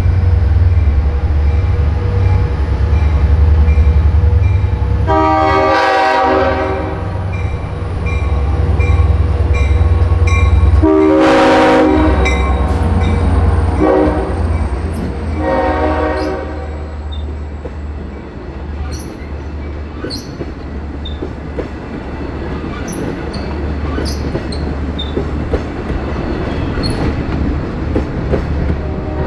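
Long Island Rail Road locomotive-hauled train passing through a level crossing. Its horn sounds the grade-crossing signal of long, long, short, long over the heavy low rumble of the locomotive, while the crossing bell rings steadily. In the second half the cars go by with wheel clicks and clatter on the rails.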